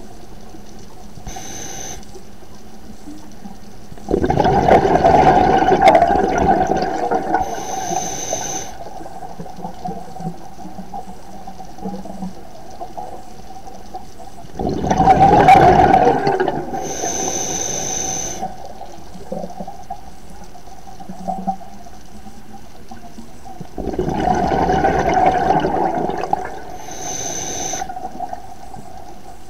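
Scuba diver breathing through a regulator underwater: a short hiss on each inhale, then a loud rush of exhaled bubbles. Three exhalations, roughly ten seconds apart.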